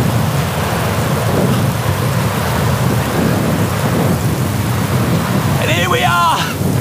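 Heavy rain and rumbling thunder from a storm sound effect, steady throughout. About six seconds in, a man gives a brief shout over it.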